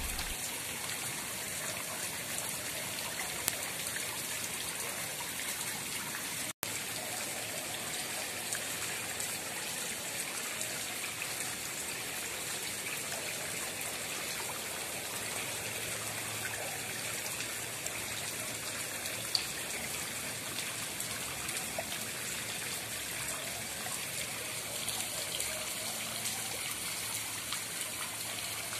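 Steady trickling and splashing of pond water, cutting out for an instant about six and a half seconds in.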